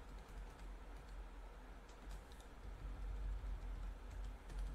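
Faint, scattered keystrokes on a computer keyboard, a few taps about two seconds in and a few more near the end.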